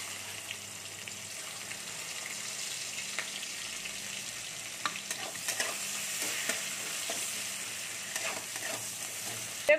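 Chopped onions sizzling as they fry in hot oil in an aluminium kadai: a steady hiss. From about the middle on come scattered crackles and scrapes as a flat metal spatula stirs them against the pan.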